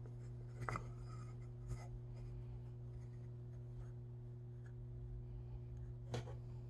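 Carved wooden puppet-head parts knocking and rubbing together as the face piece is fitted into the back of the head and handled, with a few light knocks, the sharpest near the end, over a steady low hum.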